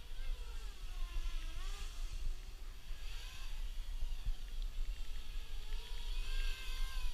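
Brushless motors of a 250-size QAV250-clone racing quadcopter whining, the pitch gliding up and down again and again with the throttle, over a steady low rumble.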